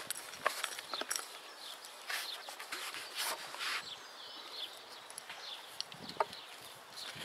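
Small hand trowel scraping and digging through lumpy, stony soil: a run of gritty scrapes and small knocks, heaviest about two to four seconds in.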